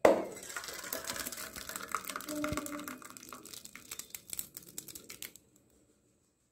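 Cooked colostrum sweet (seempaal) being spooned from the pot into a perforated steel bowl: a run of quick, irregular clicks and scrapes of a steel spoon against the metal, with wet sounds of the sticky mixture, stopping about five seconds in.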